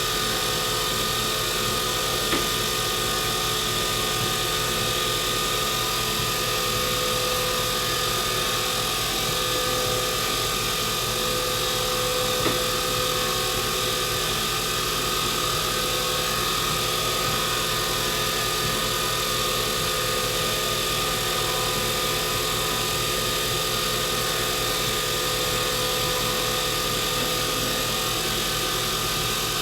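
Wood lathe running at a steady speed with an even, many-pitched motor hum while a stabilized burl pen blank is wet-sanded on it, with a couple of light ticks about two and twelve seconds in.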